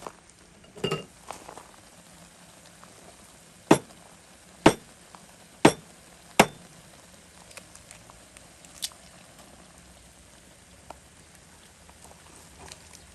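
Sharp clinks and knocks of cookware and utensils while instant ramen is being cooked, four in a row about a second apart in the middle, over a faint steady hiss.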